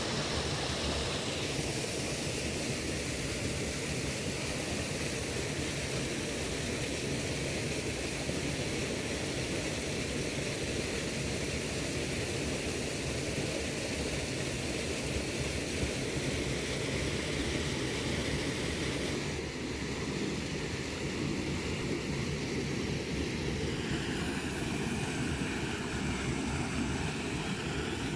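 Steady rushing and flowing of river water, with no separate splashes standing out; the noise changes in tone twice, about two-thirds and four-fifths of the way through.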